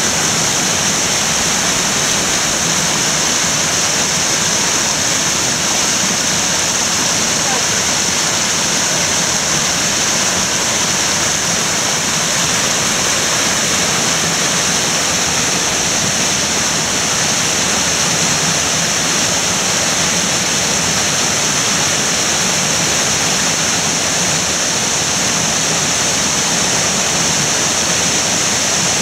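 Rocky mountain stream rushing over boulders and small cascades: a steady, even rush of white water that does not change.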